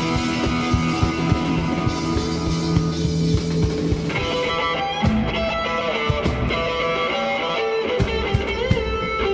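Background rock music with guitar over a steady drum beat; the arrangement changes about four seconds in.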